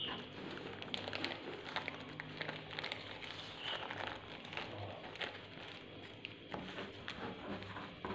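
Baking paper and plastic sheet rustling and crinkling as they are wrapped and pressed tightly around a rolled sponge cake, with many small irregular clicks and taps. A low steady hum runs underneath.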